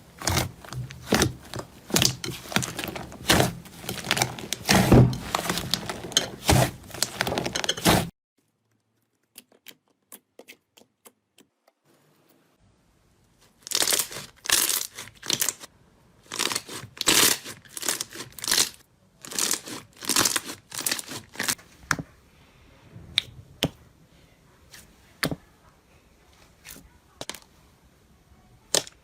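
Slime being squeezed and poked by hand, giving rapid crackling and popping clicks. About eight seconds in the sound drops to near silence with a few faint ticks, then the crackling comes back in bursts and thins to sparse single clicks over the last several seconds.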